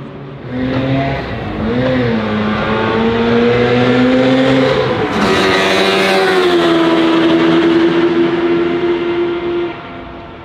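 Mazda RX-7's naturally aspirated, peripheral-ported 26B four-rotor engine accelerating past at high revs. Its steady pitch climbs, drops as the car goes by about five seconds in, and the sound falls away suddenly near the end.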